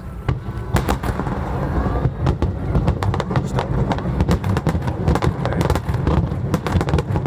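Aerial fireworks going off in a dense, irregular run of bangs and crackles that starts just after the opening.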